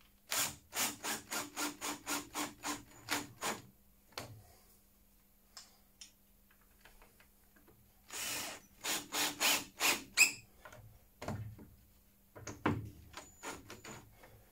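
Ryobi cordless drill run into wood in quick trigger bursts, about three a second: a run of about ten at the start, and another about eight seconds in that ends in a sharp click. A few knocks of handling follow.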